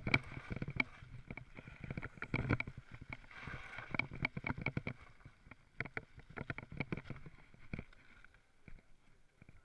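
Mountain bike rattling and clattering over a bumpy dirt trail and gravel, with many irregular knocks from the frame, chain and mounts. The clatter thins out near the end as the bike slows to a stop.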